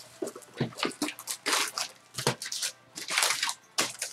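Sealed trading-card boxes being ripped open, their wrapping and cardboard tearing in a quick, irregular series of short rips.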